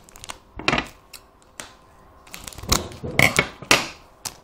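A foil trading-card pack crinkling and tearing open in a series of sharp crackles, one just under a second in and the loudest cluster about three seconds in.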